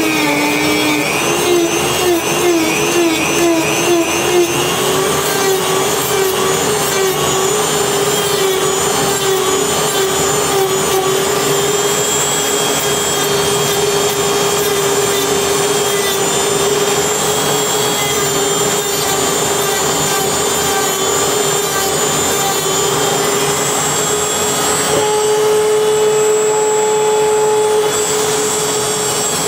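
Belt grinder running with a knife part held against the belt: a steady motor hum under an even grinding hiss. The hum wavers in pitch in the first few seconds and steps up slightly near the end.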